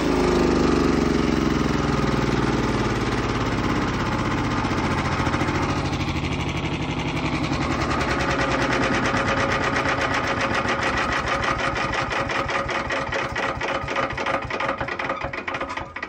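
Brush Master chipper shredder's small gas engine running steadily with an even rapid pulse, with no branch feeding through it.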